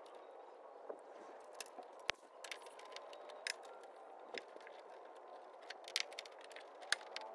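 Irregular sharp clicks and taps of hand tools and stiff electrical wire being worked in a metal breaker panel (a wire stripper on a ground wire, then a screwdriver), over steady low background noise.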